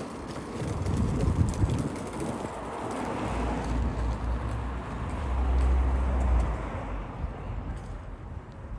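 Footsteps on stone paving during an outdoor walk, with a low rumble that swells about a second in and again from about three and a half to six and a half seconds, then fades.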